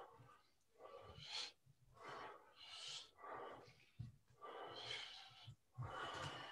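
A man breathing audibly during arm-swing exercise, a quiet noisy breath roughly every second in time with the swings, with faint low thuds.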